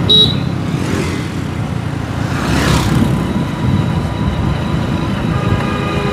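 Motor scooter ride heard from the pillion seat: a steady low rumble of engine and wind noise. A short high tone sounds right at the start, and a rush of noise passes about two and a half seconds in.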